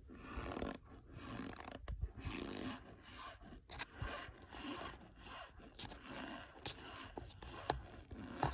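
Cornstarch being squeezed and pressed, giving a run of squeaky, crunching scrapes about once a second, with sharp clicks among them.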